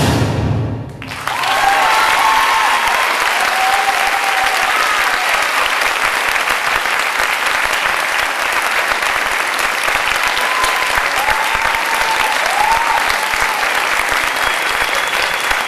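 Recorded music for the dance ends about a second in, and a theatre audience breaks into loud, sustained applause, with a few voices calling out over the clapping.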